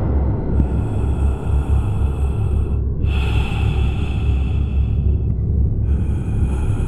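Experimental film soundtrack: a loud, continuous low rumbling drone under a noisy hiss. Steady high tones above it cut out abruptly several times, about half a second in, around three seconds in and near six seconds.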